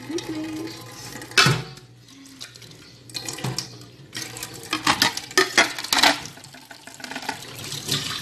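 Dishes being washed by hand at a sink: a tap running with low flow, with plates clinking and clattering, sharpest about a second and a half in and again several times around five to six seconds in.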